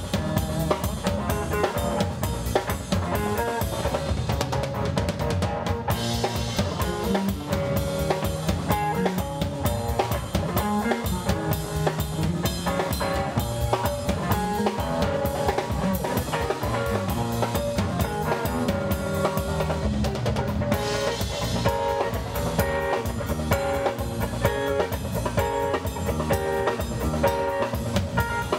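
Live band playing: drum kit with bass drum and snare keeping a steady beat under electric guitars, continuous and loud.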